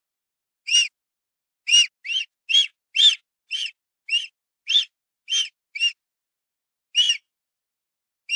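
A bird giving short, high calls, each rising then falling in pitch, about a dozen in a loose, uneven series with a longer pause near the end. There is dead silence between the calls.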